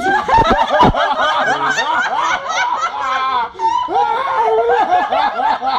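Women laughing hard close to the microphone, a run of high-pitched giggles and cackles in quick repeated bursts.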